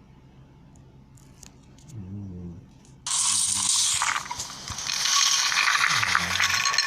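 Slime being squished and worked by hand. After a quiet start with a few faint clicks, a loud crackling, crunching noise begins about three seconds in and carries on.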